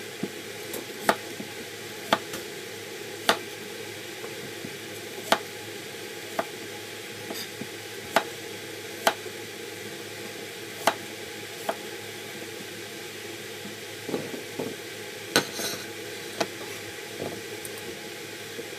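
Kitchen knife cutting peeled potatoes into chunks on a cutting board: sharp knocks of the blade hitting the board, roughly once every second or two, over a steady background hiss.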